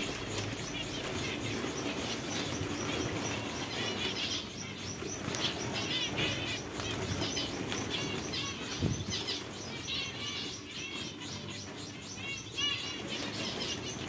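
A flock of zebra finches fluttering about and calling with many short chirps, scattered all through, as they are chased for catching.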